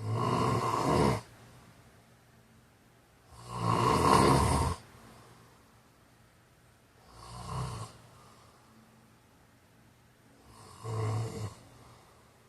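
A man snoring: four snores about three and a half seconds apart, each lasting about a second, the last two fainter than the first two.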